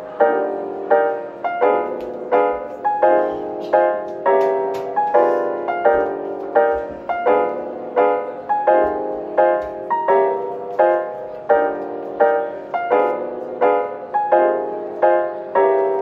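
Background piano music: a calm melody of evenly spaced struck notes, each fading away before the next.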